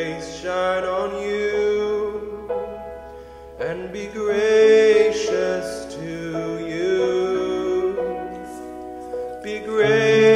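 Slow Christian worship music with long, held notes.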